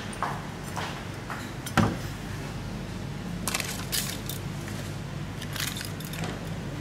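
Metal spatulas scraping and knocking against the steel cold plate of a rolled ice cream station while Oreo ice cream base is spread and scored. The loudest knock comes just under two seconds in, with clusters of scrapes later. A steady low hum runs underneath.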